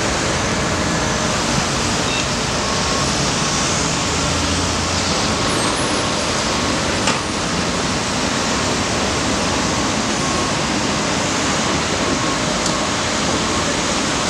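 Steady wash of city traffic noise with a low engine hum, heard from high above the street. A brief click comes about halfway through.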